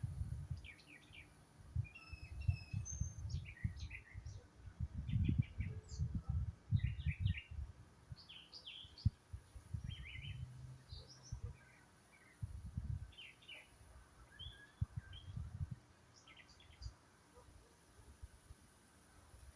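Several small birds chirping in short, high notes, scattered through the whole stretch. Irregular low rumbling bursts sound underneath and are the loudest thing heard.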